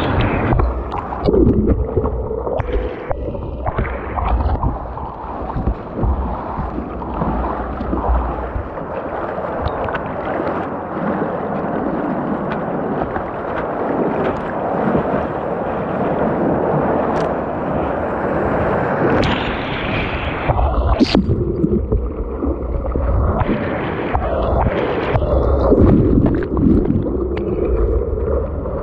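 Whitewater rapids rushing and splashing around a kayak, with waves washing over the bow deck.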